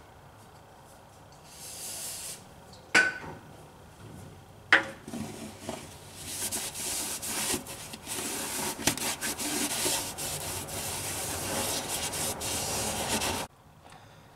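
A cloth rag scrubbing hard over the machined lower liner seal surface of a Caterpillar D13000 engine block bore, cleaning it. The rubbing runs for about seven seconds and stops abruptly near the end. Before it come a short hiss and two sharp knocks.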